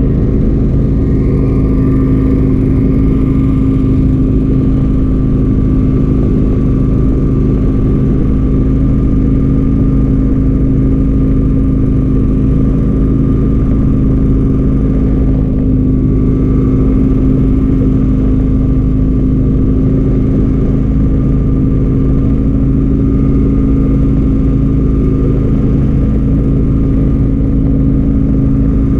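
An engine running steadily at an even speed, a constant hum with a low rumble that stays unchanged throughout.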